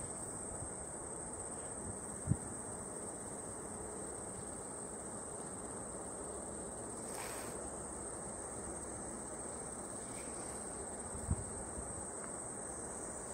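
Steady high-pitched insect chirring from the summer grass and trees, over a faint even hiss, with two brief low thumps, one about two seconds in and one near the end.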